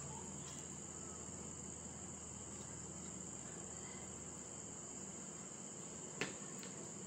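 A steady high-pitched background trill or whine with a faint low hum. Under it comes the soft scraping of a plastic spoon spreading chutney over a paratha on a plate, and one sharp click about six seconds in.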